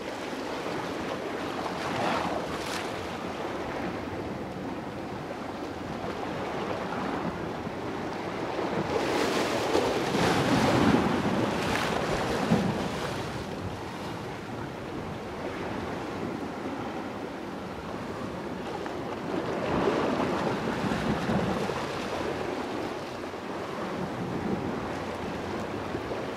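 Sea waves washing against rocks, a steady rush that swells louder twice, with wind on the microphone.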